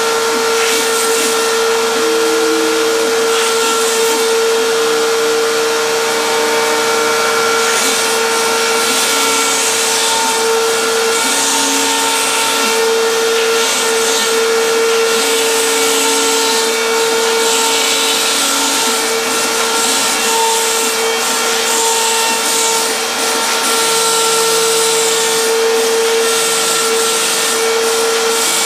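PhlatPrinter MKII CNC machine cutting foam sheet. The spindle motor runs with a steady whine, while the drive motors add short humming tones that change pitch every second or two as the sheet and cutter move.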